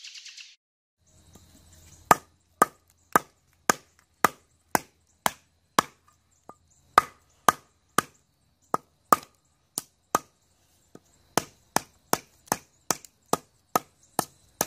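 Batoning: a wooden baton striking the spine of a Mora Black bushcraft knife to drive it through a knotty stick. Sharp knocks come about two a second, starting about two seconds in, with a couple of short pauses.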